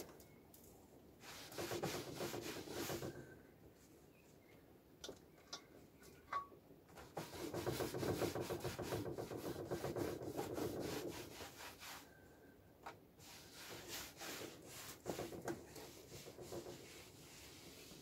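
Rubbing and scrubbing over a wooden tabletop in three spells of strokes, with a few light knocks of things being moved between them.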